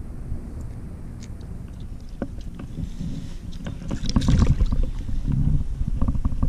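Light splashing and handling noise as a northern snakehead is let go into shallow, muddy water at the bank, over a low rumble of wind on the microphone. There is a louder scuffle about four seconds in.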